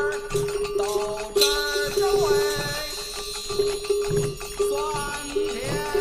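A sound collage of old Beijing street sounds set to music: a steady, repeating note under gliding sung or played melodic lines, with a sharp metallic strike about a second and a half in that rings on for a couple of seconds.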